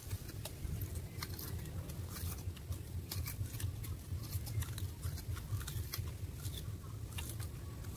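Sugarcane being bitten, torn and chewed: scattered short crackles and tearing of the hard rind, over a low steady rumble.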